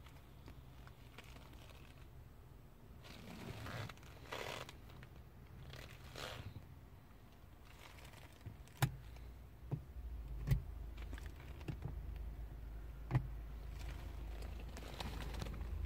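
Quiet sounds inside a car cabin: soft rustling, then a few sharp clicks, with a low steady hum that sets in about ten seconds in.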